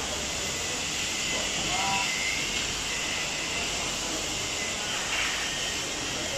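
Steady workshop background noise: an even hiss with a faint thin whine, and no distinct event.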